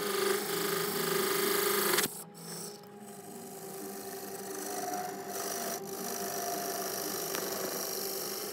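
Lathe chisel scraping the inside of a spinning segmented wooden bowl, a rasping over the steady hum of the lathe's motor. The scraping is loudest for about the first two seconds, drops off suddenly, then carries on more quietly.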